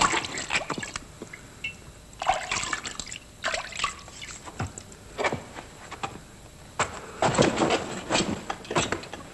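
Water splashing and sloshing in irregular short bursts, with trickling and dripping between them.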